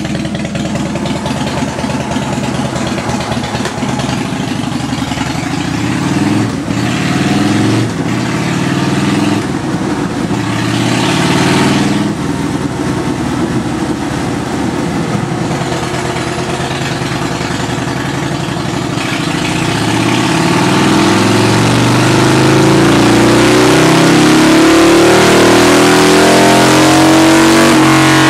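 2005 Harley-Davidson Deuce's Twin Cam 88B V-twin, breathing out through Vance & Hines pipes, running on a dyno. It idles unevenly with throttle blips in the first half, then makes one long full-throttle pull, the pitch and loudness rising steadily over the last several seconds.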